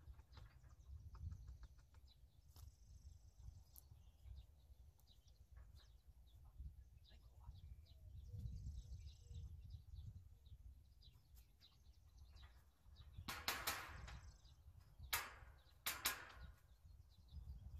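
Low outdoor rumble of wind on the microphone with faint bird chirps. Near the end come three sharp knocks or clatters, the first a short rattle, which are the loudest sounds here.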